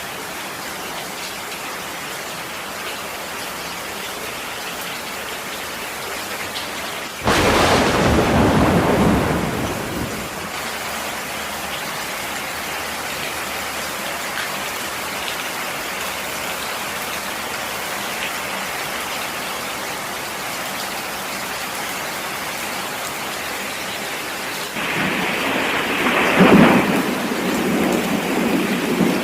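Steady rain hissing, with a sudden loud thunderclap about a quarter of the way in that rumbles away over about three seconds, and a second, longer roll of thunder starting near the end.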